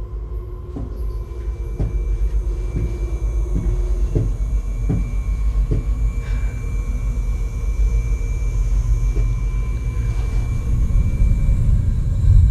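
Horror film soundtrack: a low rumbling drone that slowly swells louder, under thin sustained high tones, with a string of soft irregular knocks in the first half.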